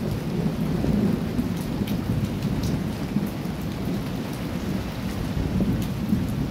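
Heavy rain pattering into standing floodwater on a street, a dense steady splashing of drops over a low rumble.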